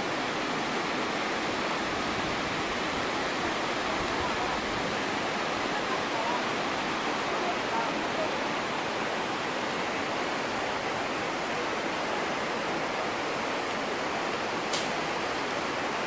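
Steady rushing of a flooded river's white-water rapids, with one brief click near the end.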